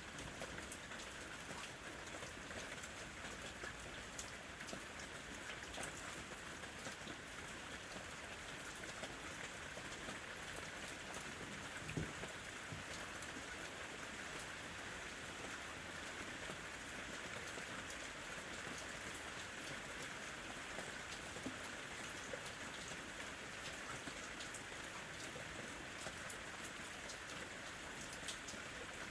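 Steady, fairly quiet rain falling on a window, with many fine drop ticks and one louder tap about twelve seconds in.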